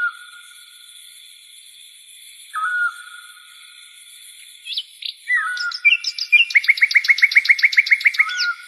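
A songbird singing: short whistled notes that slide down in pitch, given a few times, then a fast run of about a dozen chirps near the end, over a steady high hiss.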